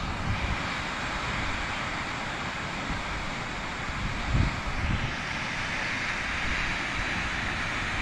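Steady roar of a large waterfall, with wind buffeting the microphone in uneven low thumps, the strongest about four and a half seconds in.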